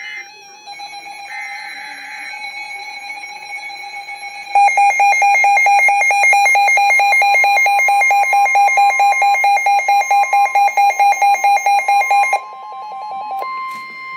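Emergency Alert System tones: two short, buzzy data bursts, then about four and a half seconds in the loud, harsh two-tone attention signal, pulsing rapidly. It cuts off suddenly about twelve seconds in.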